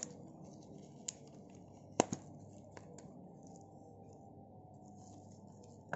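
Tape seal on a small cardboard retail box being cut open, giving a few sharp clicks and snips, the loudest about two seconds in, then light scraping.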